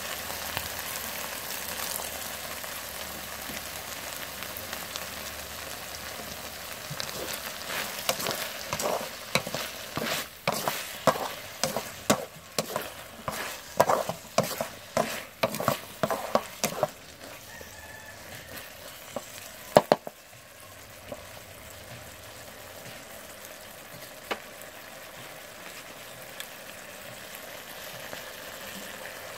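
Corn kernels with minced pork and carrot sizzling in a metal wok while a wooden spatula scrapes and tosses them. The stirring comes in a run of strokes about twice a second through the middle, with one sharp knock of the spatula on the pan after it.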